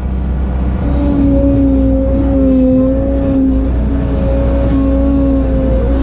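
Bobcat 743 skid steer's diesel engine running steadily. A whine comes in about a second in and holds, wavering slightly in pitch.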